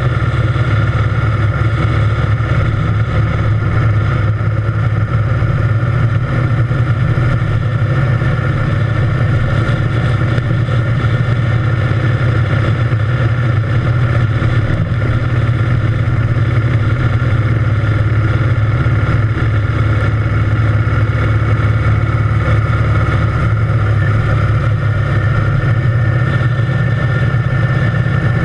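Triumph Thunderbird Storm motorcycle's parallel-twin engine running steadily while riding at an even cruising speed.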